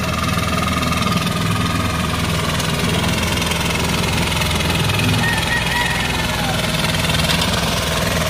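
Small single-cylinder engine of a pagong (turtle tiller) hand tractor running steadily under load as it churns through soft, muddy rice-paddy soil.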